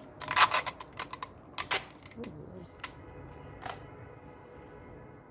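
Sharp plastic clicks and snaps from a small clear plastic case being handled and worked open: a quick burst of clicks at the start, another under two seconds in, then two single clicks about a second apart.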